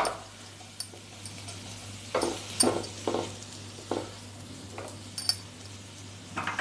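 Chopped garlic sizzling gently in melted butter in a non-stick kadai while a spatula stirs it, with several short scrapes across the pan. It is being sautéed, not browned.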